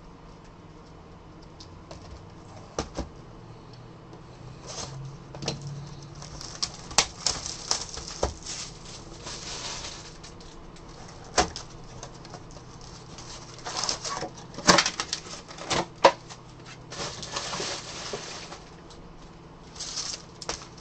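Trading-card boxes and foil card packs being handled on a table: scattered clicks and knocks of cardboard, with several bursts of crinkling from the foil pack wrappers.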